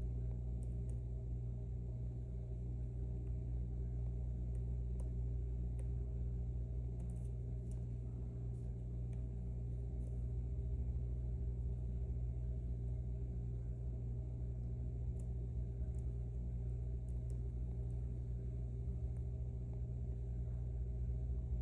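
A steady low hum, with faint, scattered light ticks of a steel pick and tension wrench working the sliders inside an M&C Matrix high-security lock.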